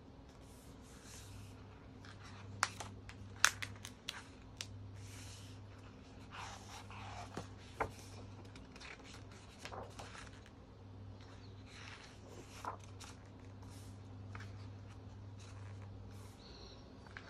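Pages of a large photobook magazine being turned and smoothed flat by hand: paper swishes and rustles with scattered sharp taps and clicks, the loudest about three and a half seconds in, over a faint low hum.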